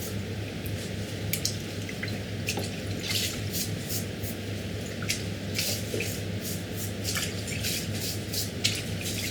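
Wet squelching and irregular splashes and drips as a raw octopus is worked by hand in salted water, over a steady low hum.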